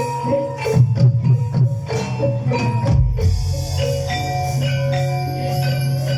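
Javanese gamelan music accompanying a jaranan dance: bronze metallophones and gongs play a repeating melody over a steady low drone, with sharp drum strokes in the first half. A deep low note enters about three seconds in, after which the melody runs on in steadier held notes.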